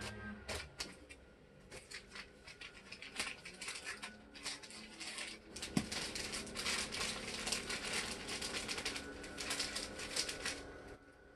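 Rapid, irregular crackling and rustling from handling food and packaging at a kitchen counter, sparse at first and dense in the second half, with a sharp click about six seconds in.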